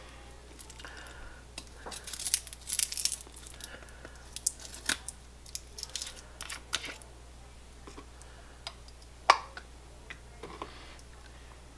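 Kitchen handling noises: a brief crinkling rustle about two to three seconds in, then scattered light clicks and knocks, the loudest a sharp click near nine seconds.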